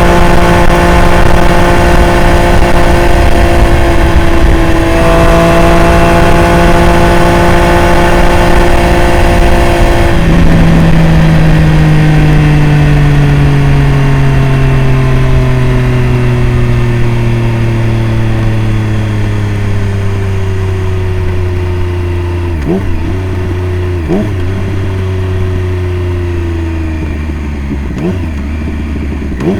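Triumph Street Triple RS inline three-cylinder engine running through a Jeskap full exhaust while riding. It holds steady revs for about the first third, then the pitch sinks slowly and steadily as the bike slows, with two brief breaks near the end. The revs climb sharply again right at the end.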